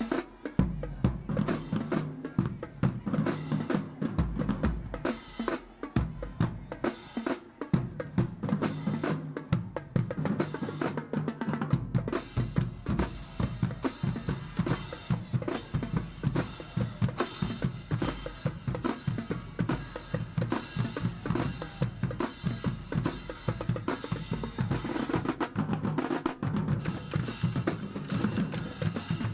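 Marching band drumline playing a fast percussion cadence: dense, rapid snare strokes and rolls over tuned bass drums.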